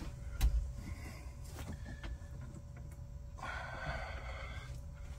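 Faint handling sounds of hands working inside an air handler's condensate drain pan, pushing treatment tablets into place: a few light taps, then a scraping rustle about three and a half seconds in that lasts about a second.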